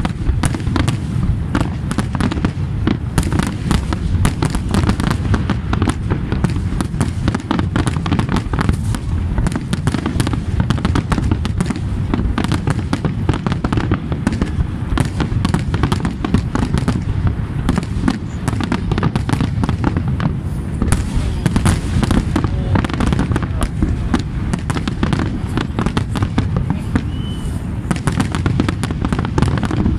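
Aerial fireworks display at its height: many shells bursting in quick succession, their bangs overlapping into a continuous rumble.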